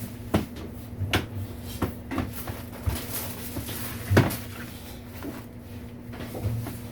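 Scattered knocks and clatters of hard kitchen items being handled and set down, about eight of them, the loudest about four seconds in, over a steady low hum.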